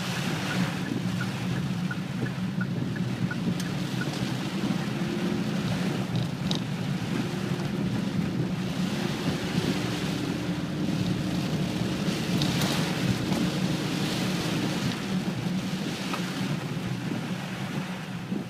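Gale-force wind buffeting the microphone in a steady low rumble, with a rushing noise of wind-driven rain over it.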